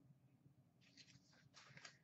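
Near silence, with a few faint rustles of trading cards being handled in the second half.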